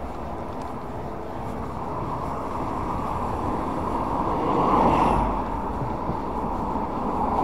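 Wind rushing over the camera microphone on a moving e-bike, with a steady rumble of road and tyre noise; it swells to its loudest about five seconds in.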